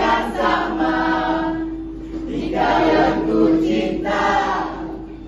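A group of voices singing together, chorus-style, in loud phrases about a second long with short breaks between them, over a steady held note.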